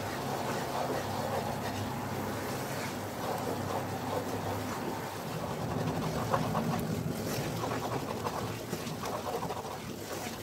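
A wooden spatula stirs and scrapes through a thick flour-and-butter mixture frying in a nonstick pan, over a steady sizzle. The flour is toasting in the butter and catches on the bottom within seconds if the stirring stops.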